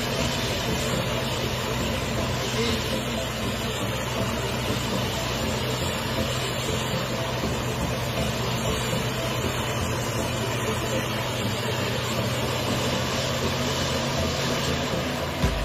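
Self-propelled forage harvester running steadily while chopping standing maize: an even mechanical drone with a constant low hum.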